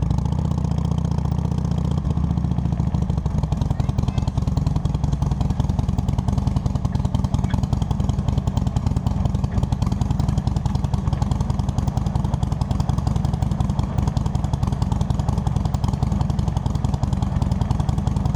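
Harley-Davidson Sportster's V-twin engine running steadily at idle, picked up close by a camera clamped to the rear license plate, which is vibrating quite a bit.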